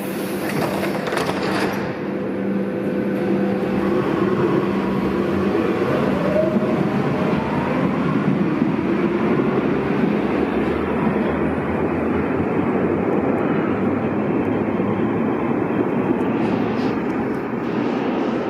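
A Berlin U-Bahn train with three-phase AC traction motors (a "Drehstromer") pulling out of an underground station. A burst of hiss near the start, then the motors whine up in pitch as it accelerates, and the train rolls past with a steady, echoing rumble of wheels on rail.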